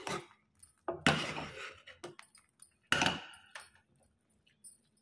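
Steel ladle stirring and scraping through simmering milk and tapioca pearls in a steel saucepan: two main strokes, about a second in and about three seconds in, with a few light clinks between.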